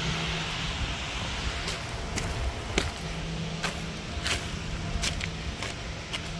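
Footsteps crunching over loose railroad ballast stone and spilled grain, an irregular step roughly every half second to second, over a steady low hum.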